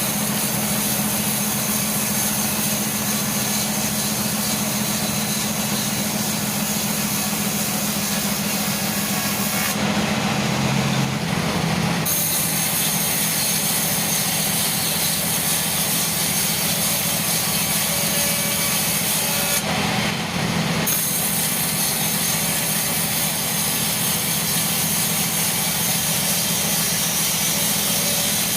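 Sawmill saw cutting teak, with a steady motor hum under a hiss that reaches high into the treble. The high hiss drops out briefly twice, about ten and twenty seconds in.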